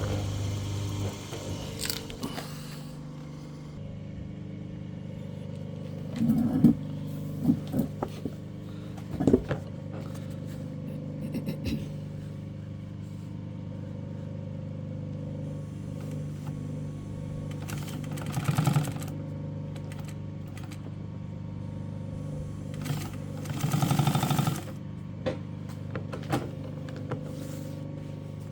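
Seiko STW-8B industrial walking-foot sewing machine: its motor hums steadily, with a few sharp knocks and two short bursts of fast stitching, the second a little over a second long, near the end.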